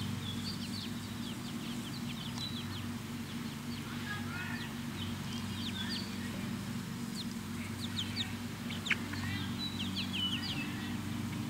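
Six-week-old chicks cheeping and peeping in many short, high chirps, over a steady low hum.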